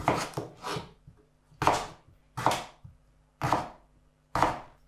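Kitchen knife slicing a raw potato into wedges on a wooden cutting board: about six separate cuts, roughly one a second, each ending in a knock of the blade on the board.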